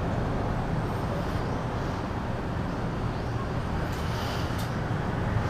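Steady background rumble and hiss of a busy shop, like traffic noise, with a couple of faint clicks about four seconds in.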